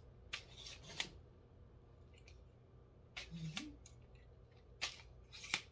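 Several sharp plastic-and-metal clicks and snaps, spaced unevenly, as a tripod's leg sections and locks are handled and pulled out. The loudest click comes near the end. A brief murmur of a voice is heard about three and a half seconds in.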